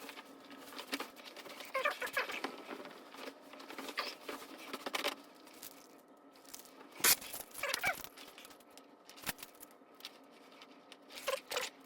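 Clothes and fabric rustling and crinkling while being handled during dressing, with a sharp knock about seven seconds in.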